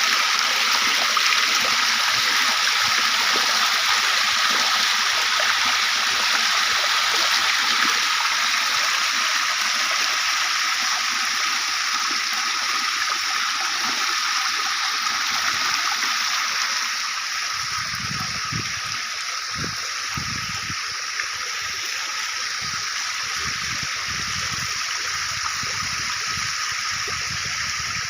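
Water from a fountain gushing and splashing steadily. It grows a little quieter about two-thirds of the way in, and from then on irregular low dull thuds are heard under it.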